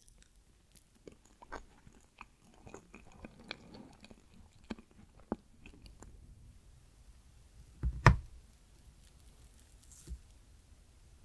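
A fork cutting down through a slice of chocolate cheesecake and its Oreo cookie crust, with small crumbly crunches and clicks. About 8 seconds in there is a loud knock as the fork reaches the glass plate, and a lighter one near 10 seconds.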